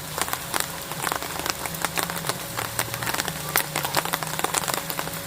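Rain falling steadily, many drops striking in dense, irregular clicks, with a low hum underneath.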